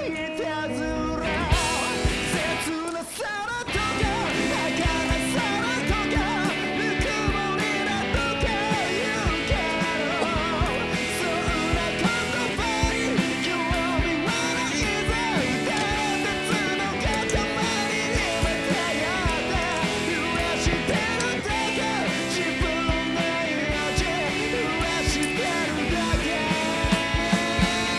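Rock song with a male singer and a steady drum beat, thinning out briefly about three seconds in.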